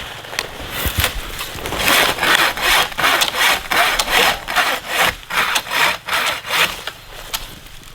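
Hand saw cutting through wood in steady back-and-forth strokes, about one and a half to two a second, growing softer near the end.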